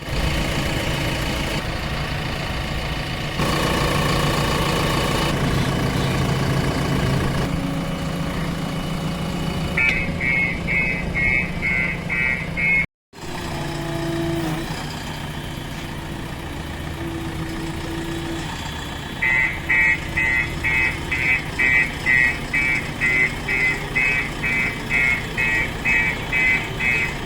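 JCB 3DX Plus backhoe loader's diesel engine running, with its reversing alarm beeping about twice a second for a few seconds near the middle and again through the last third.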